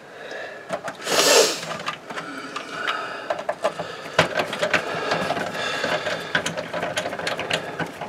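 Screwdriver driving a motherboard screw into a standoff in a metal PC case: a run of small clicks and scrapes, with a brief louder rush of noise about a second in.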